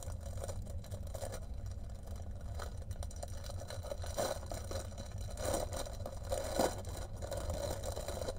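Plastic packaging crinkling and rustling in the hands, with bagged diamond-painting drills rattling, in a few short bursts over a steady low hum.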